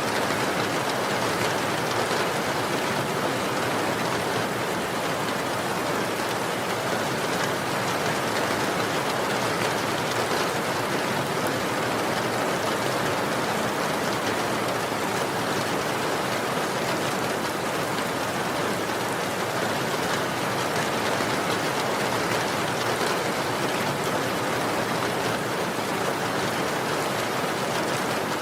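Steady rainfall, an even hiss of rain on a surface with no thunder or other events.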